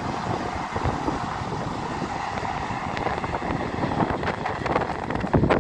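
Wind buffeting the microphone over the steady, distant rumble of a passing passenger train; the buffeting gets stronger near the end.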